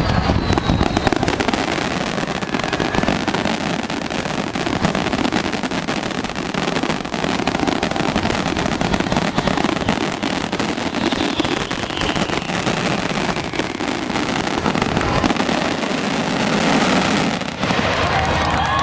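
Fireworks display: a dense barrage of aerial shell bursts and crackle running together without a break.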